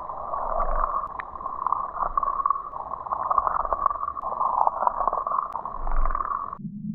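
Muffled underwater sound of an Acme Rattlin' Spinmaster trout spinner being retrieved through a creek: rushing water with fast, irregular clicking from the spinner's internal rattles. Near the end it cuts abruptly to a deeper, duller rumble.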